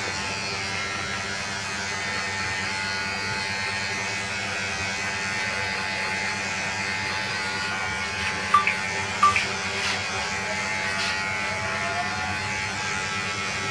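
Electric hair clippers buzzing steadily as they cut short hair at the back of the head, the blade set to 0.5 with the lever closed. Two short clicks sound about two thirds of the way in.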